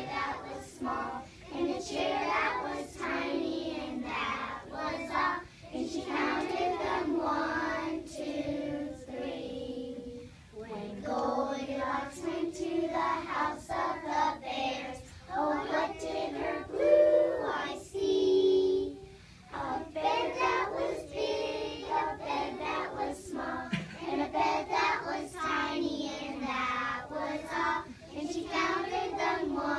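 A group of young children singing a song together, with two short breaks about ten and nineteen seconds in.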